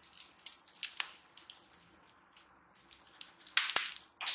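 Bead-filled pebble slime squeezed and kneaded by hand, giving a run of sticky, irregular crackles and pops. A louder burst of crunching comes near the end.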